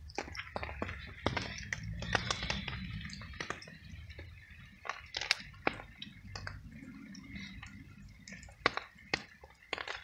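A wet tabby cat eating treats, with irregular sharp clicks and wet smacks, amid dripping rain.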